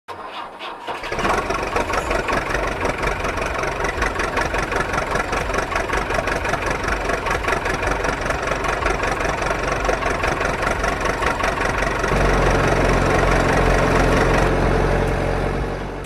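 An engine starting about a second in, then running with a fast, even beat; about three quarters of the way through it settles into a steadier low hum and fades near the end.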